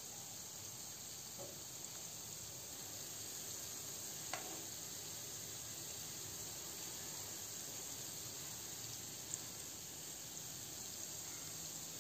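Gulab jamun dough balls deep-frying in hot oil in a pan: a steady sizzle of bubbling oil, with a couple of small clicks.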